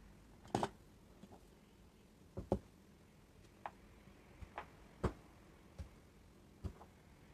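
A kitchen knife knocking down through hard blocks of mochi onto a cutting board, with cut pieces dropped into a glass bowl: about ten separate, irregular knocks and clicks, the loudest near the start and about two and a half seconds in.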